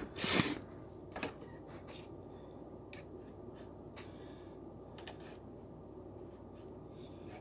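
Handling noise from a phone camera being moved: a loud short rub or bump right at the start, a knock about a second in, then a few faint clicks over steady low room noise.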